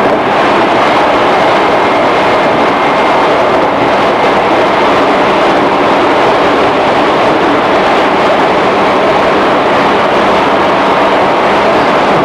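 Running noise of a JR 211 series electric train, heard from inside motor car MoHa 210-1001 as it runs steadily along the line.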